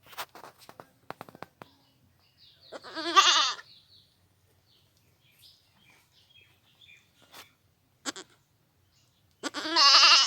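Goat bleating twice, each call a wavering, quavering bleat about a second long, the two some six seconds apart. A run of sharp clicks and knocks comes at the start.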